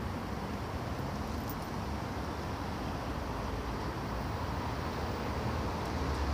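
Steady low rumble of road traffic, cars and a truck driving across a bridge, with a slight swell in the rumble near the end.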